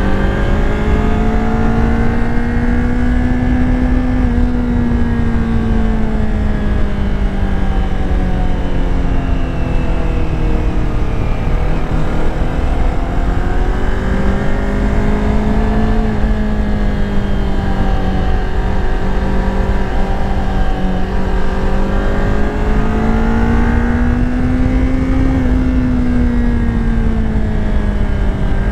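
Kawasaki Ninja 400's parallel-twin engine running while riding at cruising speed, its pitch rising and falling gently a few times, with wind noise rumbling on the microphone.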